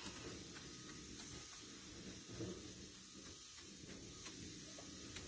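Near-quiet room tone with a few faint, scattered light ticks and rustles from small plastic toy horse figures being moved by hand over a soft fluffy floor.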